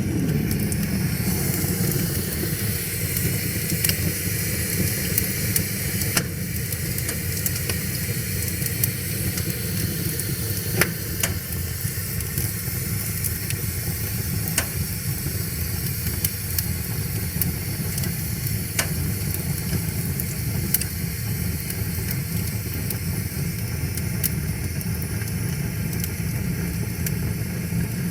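Wood fire crackling, with sharp pops every second or two, over a steady rushing of river water.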